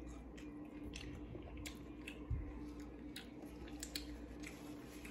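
A person chewing food quietly, with small wet mouth clicks scattered throughout and one low thump a little past two seconds in, over a steady low hum.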